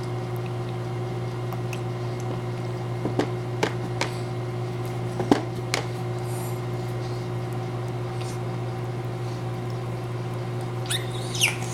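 Steady low electrical hum with a few sharp taps or clicks scattered through the first half. A baby starts to fuss and cry right at the end.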